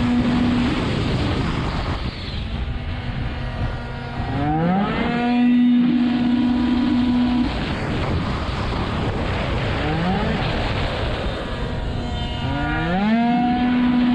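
Small-capacity two-stroke racing scooter engine heard onboard at full race pace. Its note sags while braking into corners, then sweeps sharply up and holds at a steady high pitch as it drives out, three times, over continuous wind and road rush.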